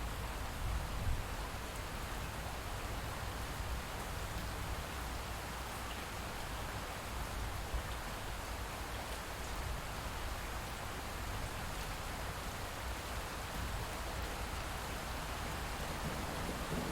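Light rain falling steadily, with a low rumble of distant thunder underneath.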